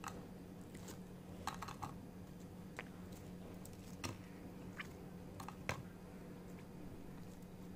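Crisp deep-fried baby corn fritters being picked up and set down on a ceramic serving plate: a scattering of light clicks and taps, about one a second, over a faint steady hum.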